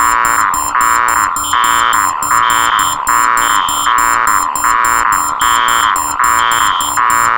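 Four electronic alarms sounding at once in a loud, harsh layered beeping. The main tone pulses about once a second, with a rapid high-pitched beep running over it.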